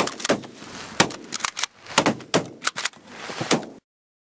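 A rapid, irregular volley of about nine shotgun shots, several guns firing at geese overhead. The sound cuts off abruptly near the end.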